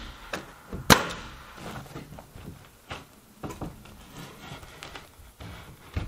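A pneumatic nailer firing a nail into OSB sheathing: one sharp bang about a second in, followed by a few lighter knocks.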